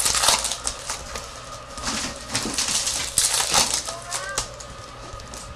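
Trading cards and foil pack wrappers being handled and shuffled, with many quick, irregular crinkles and clicks.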